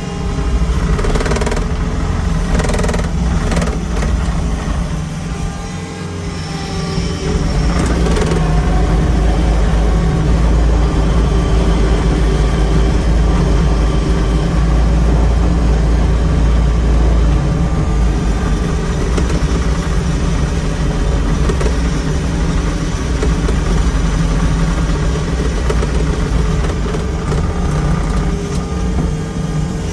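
John Deere 323E compact track loader's diesel engine running, the revs coming up about eight seconds in and holding higher for about ten seconds before easing back. A few knocks sound in the first few seconds.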